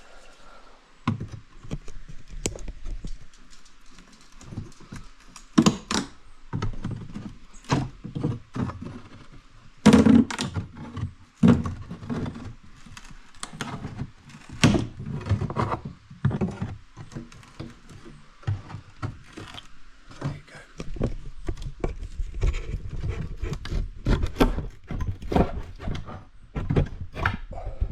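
Irregular knocks, thuds and cracks of nailed trim being prised and knocked off a door frame, with a run of denser low thumps over the last few seconds.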